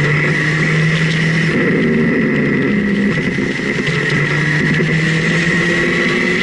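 Onboard sound of a vehicle under way: its engine runs steadily under wind and road rush, with a steady high whine underneath. The engine note dips briefly about a second and a half in, then picks up again.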